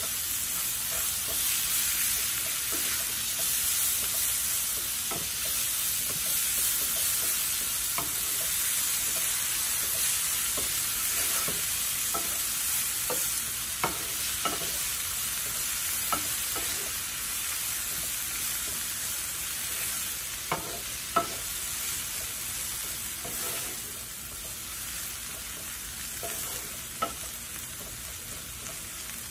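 Coriander leaves, garlic and onion sizzling in mustard oil in a nonstick frying pan, stirred with a wooden spatula that scrapes and taps the pan now and then. The sizzle is steady and grows a little quieter near the end.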